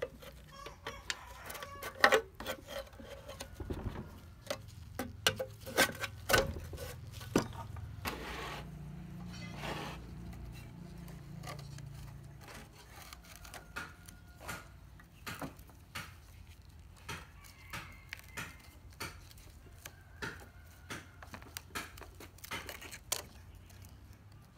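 Hand tools and metal parts of an old two-stroke pump engine clicking and knocking irregularly. The loudest knock comes about two seconds in, with a flurry of knocks a few seconds later.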